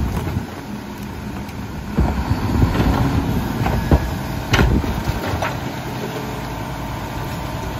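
Rear-loader garbage truck running while its hydraulic cart tipper lifts a plastic recycling cart and dumps it into the hopper; the mechanical noise grows louder from about two seconds in, with a few hard knocks of the cart around four to five seconds in.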